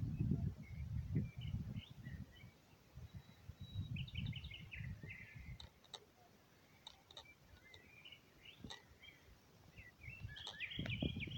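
Small birds chirping in short, scattered calls, over uneven low rumbling on the microphone.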